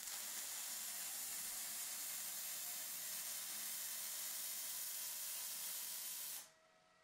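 MIG welding arc running steadily as a wire-feed gun welds a short round tube onto a flat plate: an even hiss that stops abruptly about six and a half seconds in when the trigger is released.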